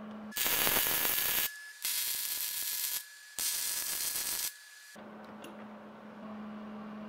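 Wire-feed welder arcing on thick square steel bar: three bursts of steady crackling hiss, each about a second long with short gaps between, as weld is laid into the bevelled notches. After the third burst a low steady hum remains.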